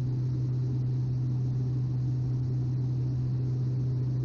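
Cessna 208 Grand Caravan EX's Pratt & Whitney PT6A-140 turboprop and propeller in a steady climb: a constant low drone with a strong steady hum, heard through the cockpit's intercom audio feed.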